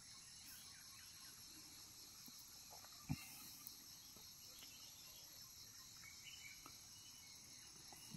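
Faint, steady high-pitched chirring of insects, with one short knock about three seconds in.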